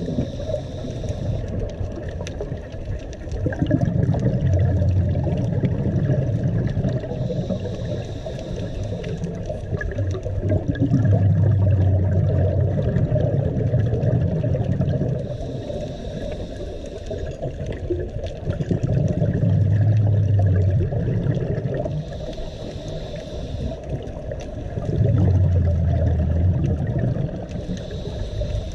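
Scuba diver breathing through a regulator underwater: about every seven seconds a short hissing inhale, followed by a longer, louder bubbling exhale as the exhaled air escapes.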